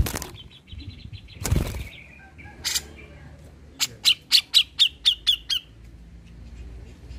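Cucak jenggot (grey-cheeked bulbul) in a cage: a flutter of wings at the start and again about a second and a half in, then a rapid run of about eight sharp, loud call notes, about four a second, starting about four seconds in.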